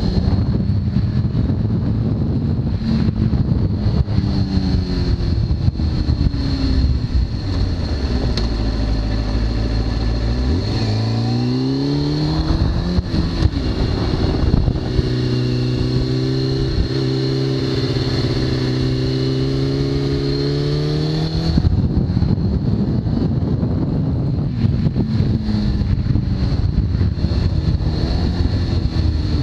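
2003 Kawasaki ZX-6R's inline-four running through a full Hindle titanium exhaust, heard from the rider's seat with wind rush. The revs fall off as the rider slows, then rise steeply in a hard pull near the middle and keep climbing for several seconds before dropping away sharply about three-quarters of the way in.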